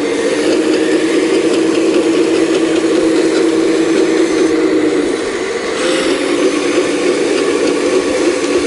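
Full-size hydraulic excavator working hard ground: a steady engine and hydraulic drone with scattered clicks and clanks. The drone drops in pitch briefly about five seconds in, and there is a single knock about six seconds in.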